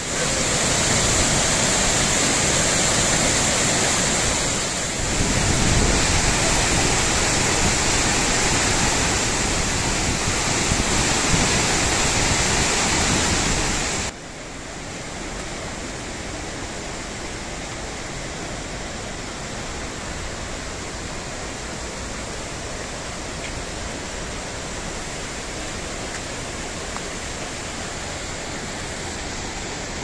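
Mountain stream rushing over rocks, a loud, steady rush of white water. About halfway through it cuts suddenly to a quieter, even rush of flowing water.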